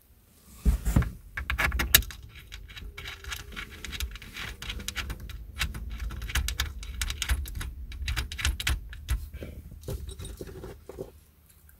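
A small metal screw and washer clinking and scraping as they are turned by hand into a plastic headrest mounting bar: a run of light metallic clicks and ticks, loudest in the first couple of seconds.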